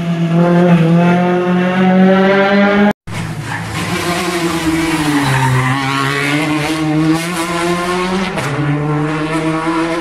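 Rally car engines running hard through a tight hairpin, two passes joined by an abrupt cut with a moment of silence about three seconds in. Before the cut one engine holds a steady high pitch; after it a Citroën DS3 rally car's engine note dips as it takes the bend and climbs again as it accelerates away.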